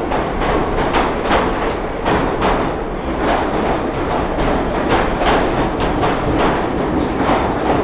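R46 subway cars rolling past with a loud, steady rumble. Over it the wheels clack on the track about twice a second.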